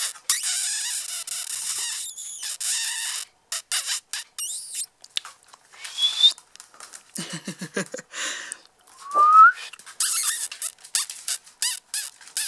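Six-week-old puppies' paws scampering and pattering over a hard floor and a paper pad, in uneven scuffling bursts, with two short rising whistle-like squeaks about six and nine seconds in.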